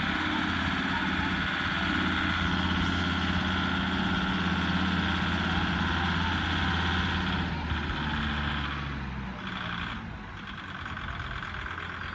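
Compact tractor with a front loader running at a steady low engine speed as it drives slowly past; its engine hum fades away about nine to ten seconds in as it moves off.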